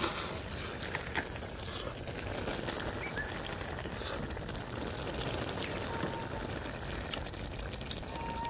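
People eating frog soup: slurping and chewing, with a few sharp clicks in the first seconds, over a steady background hiss.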